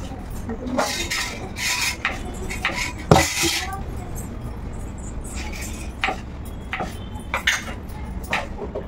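Irregular clicks and knocks of a kitchen knife cutting tomatoes and onions on a board, with cutlery-like clinks, busier in the first few seconds and with one sharper knock a little after three seconds in.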